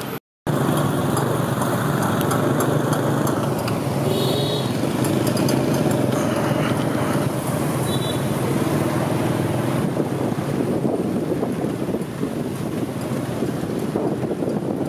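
Busy street traffic of motorbikes, scooters and cars, heard from within the moving traffic: a steady, loud din of engines and tyres. It starts after a brief dropout at the very start, with two short high beeps, one about four seconds in and one about eight seconds in.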